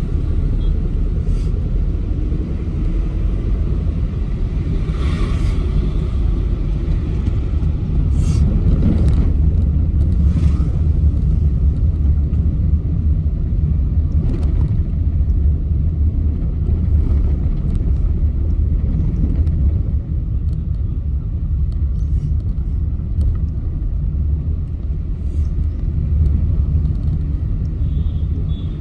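Steady low rumble of engine and road noise heard from on board a moving vehicle, with a brief rise in noise about five seconds in and again around nine seconds.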